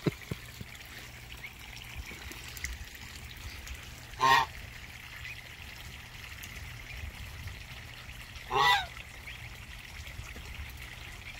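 Adult goose honking twice, about four seconds apart, each call short and rising in pitch, over steady trickling water.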